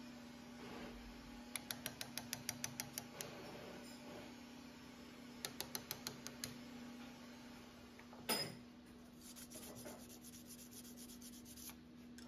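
Small hammer lightly tapping a steel punch or chisel, cutting hand-done decoration (guillochage) into a knife's back spring held in a bench vise: two quick runs of sharp metallic taps, about seven a second, then a single louder knock near the middle.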